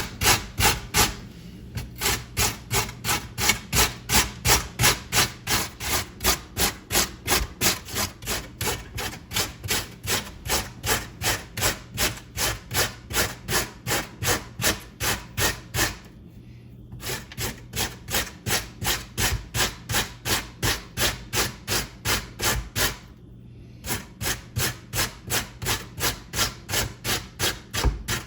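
Raw potato being grated by hand on a metal grater, in steady back-and-forth rasping strokes about two to three a second, with a few short pauses between runs.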